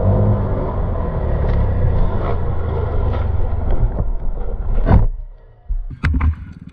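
Honda CRF250R motocross bike's single-cylinder four-stroke engine running on and off the throttle, then a dirt-bike crash. A loud impact comes about five seconds in, the engine sound drops away suddenly, and a few sharp knocks follow as the rider and bike tumble in the dirt.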